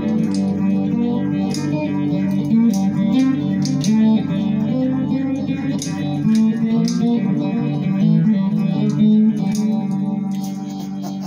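Homemade string bass built from a wooden pole and a shovel's D-handle, its strings plucked in a low, rhythmic line of changing notes. It fades a little near the end.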